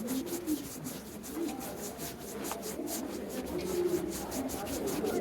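Indistinct chatter of a crowd of visitors, many voices blended together with no clear words, over soft rustling.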